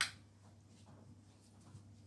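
Quiet room tone: a steady low hum with a few faint soft clicks, opening on the dying tail of a sharp knock.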